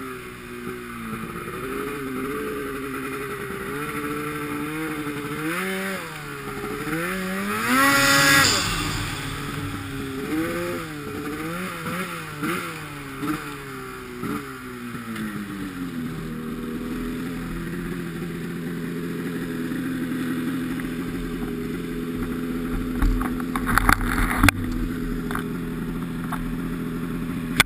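Turbocharged Polaris RMK snowmobile's two-stroke engine revving up and down under the throttle, with its biggest rev about eight seconds in. From about sixteen seconds it settles to a steady idle, with a few sharp knocks near the end.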